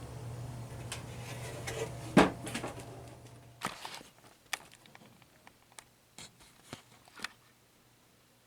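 Sharp clicks and knocks from a turntable being handled. A steady low hum stops about three and a half seconds in, and the clicks grow fainter and sparser after it.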